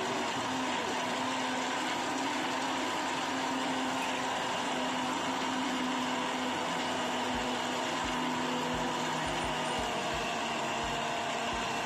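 Countertop blender motor running steadily at full speed, whirring as it blends a milky drink in its jug.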